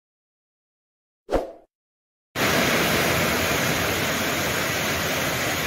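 A short burst of sound a little over a second in, then from about two seconds in a steady hiss of heavy rain.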